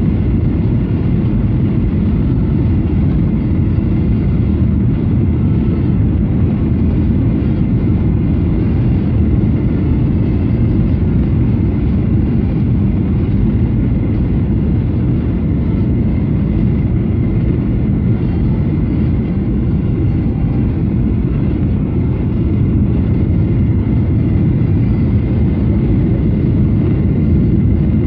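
Boeing 737-800 cabin noise heard from a window seat on approach with the flaps extended: a steady low rumble of engines and airflow, rising slightly near the end.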